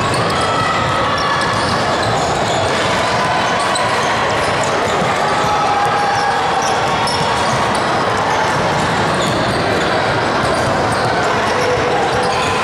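Basketball game in a gym: a ball bouncing on the court amid a steady background of voices from players and spectators.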